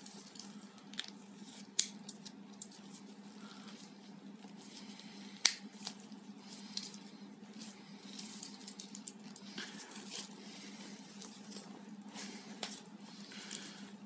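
Victorinox Picknicker pocket knife handled in nitrile-gloved hands as its red plastic scale is pressed back on: scattered small clicks and rubbing of plastic and metal, with a few sharper clicks.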